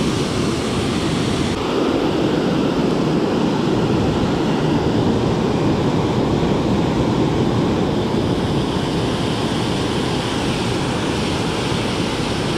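Water rushing steadily over a low dam spillway, a dense even roar of falling and churning water. Its high hiss dulls slightly about a second and a half in.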